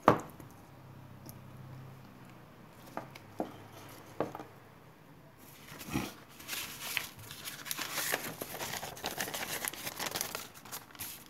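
Sheets of paper being handled and slid about on a workbench: a few soft knocks in the first half, then from about halfway a dense crinkling rustle as a sheet is moved and laid flat.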